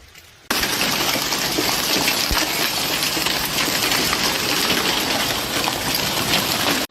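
Heavy thunderstorm downpour pelting down: a dense, loud hiss scattered with sharp individual hits, starting suddenly about half a second in.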